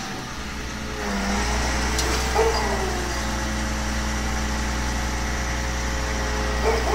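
Engine of a truck-mounted hydraulic loader crane running steadily while the crane holds a stripped car body aloft. The hum dips briefly at the start. There is a click about two seconds in and short metallic squeals soon after and again near the end.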